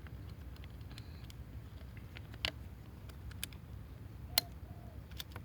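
Scattered light clicks and ticks as the desiccant column is handled and its granules settle, with two sharper clicks about two and a half and four and a half seconds in, over a low steady room hum.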